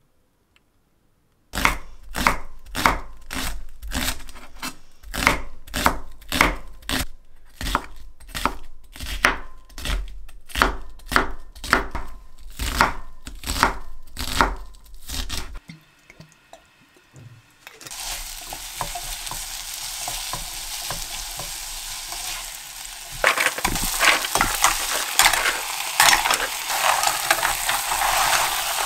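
Kitchen knife dicing an onion on a wooden cutting board, about two chops a second, which stop after about fifteen seconds. From about eighteen seconds in, a pot sizzles on the stove, and from about twenty-three seconds it is louder, with the scallop shells clattering as they are stirred with a wooden spatula.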